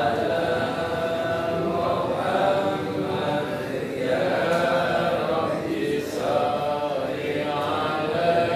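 A group of men's voices chanting together in unison, in long melodic phrases that break every second or two.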